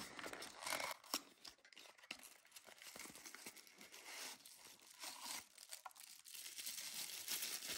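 Thin cardboard box being opened and handled, with faint scrapes and small taps. Near the end comes the crinkling of tissue paper as a tissue-wrapped item is handled.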